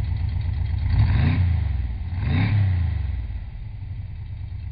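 Studebaker Hawk drag car's engine idling through its exhaust, blipped twice by the throttle, about a second in and again at about two and a half seconds, each rev rising and falling straight back to idle.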